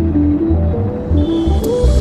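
Background music: sustained synth notes moving in steps over a heavy, steady bass.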